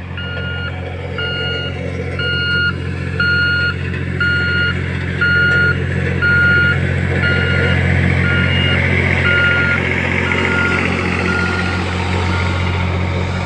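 Reversing alarm beeping steadily, just under twice a second, over the steady hum of a heavy vehicle's engine running. The beeping stops near the end while the engine keeps running.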